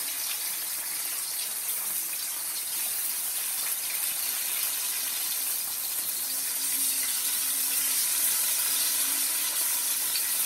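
Potato wedges frying in hot oil in a pot: a steady, even sizzle.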